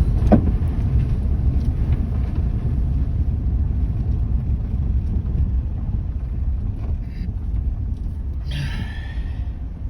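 Steady low rumble of a moving car, road and wind noise. A brief falling squeak comes just after the start, and a short hiss comes near the end.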